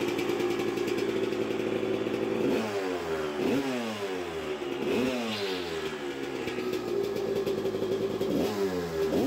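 Suzuki RM250 two-stroke single-cylinder engine running at a fast idle, then its revs sag and rise again three times, a second or so apart at first and once more near the end. The revs climb as the handlebars are turned, the throttle cable, run along the left of the frame, pulling tight and opening the throttle.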